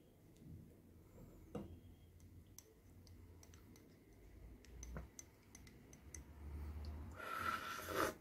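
Faint scattered clicks and light taps, with a short rushing noise near the end.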